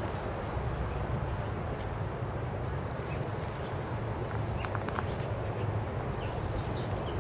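Outdoor ambient field sound: a steady low rumble and hiss under a constant high-pitched whine, with a few faint short chirps near the middle.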